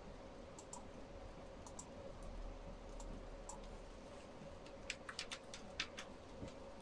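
Faint clicks of a computer mouse: a few scattered single clicks, then a quick run of several about five seconds in.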